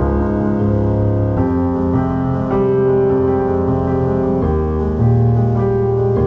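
Background piano music: slow sustained chords, changing about every one to three seconds.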